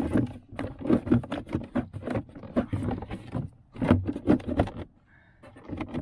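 Rustling and irregular knocks of plastic parts being handled: a plastic bag and glove-box trim, in quick uneven clusters with short pauses.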